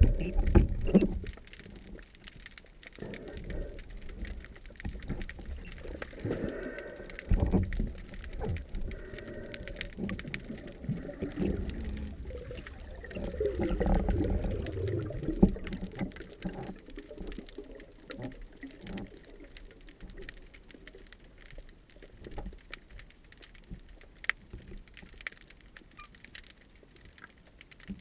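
Muffled underwater water noise heard through a camera housing during a spearfishing dive, with low rushing and scattered knocks. It is louder in the first half of the dive, near the churned surface, and quieter after about halfway as the diver moves down over the reef.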